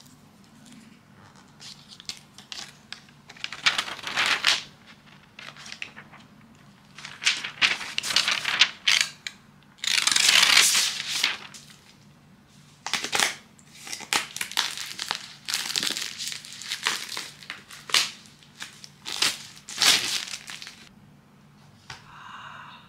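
Cardboard and paper packaging being handled and unwrapped: irregular crinkling, rustling and tearing, loudest in a long stretch about ten seconds in, with sharper crinkles at intervals after it.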